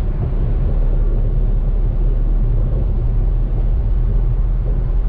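Steady low rumble of a car driving along a city road: tyre and engine noise, with no sudden events.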